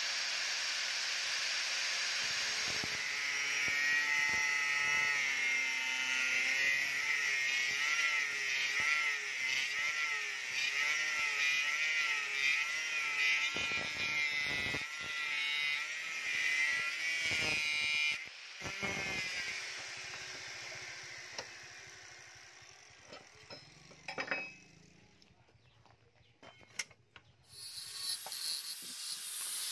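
Electric angle grinder with a thin abrasive cut-off disc cutting through steel rebar, the motor's whine wavering in pitch as the disc bites. About 18 seconds in the cutting stops and the sound dies away, with a few sharp knocks, and near the end a grinder with a flap disc starts grinding steel.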